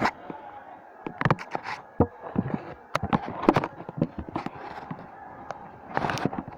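A string of irregular sharp clicks and knocks, about a dozen, from hard small objects being handled, over a faint steady background hum.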